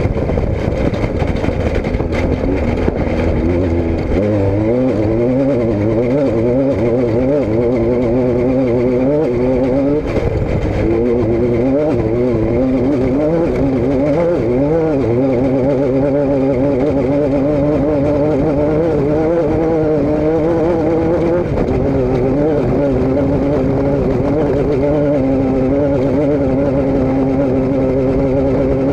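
An engine running without a break, its pitch wavering slightly up and down.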